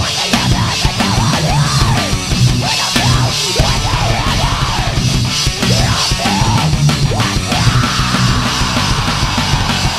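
Loud heavy rock music with a drum kit and a lead line that slides up and down in pitch over and over.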